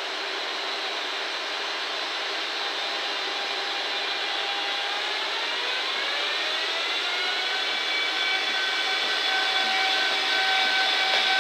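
JR Freight EF210 electric locomotive moving off under power. A steady rushing hiss is joined, about five seconds in, by the VVVF inverter's whine: several tones rise in pitch together and then hold steady. The sound grows louder as the locomotive approaches and passes.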